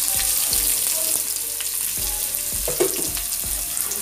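Chopped shallots frying in hot oil for a sambar tempering, sizzling steadily as they are stirred in the pan, with several dull knocks of the spatula against it.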